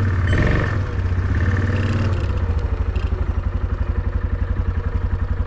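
An engine running steadily with an even, pulsing throb, swelling briefly about half a second in.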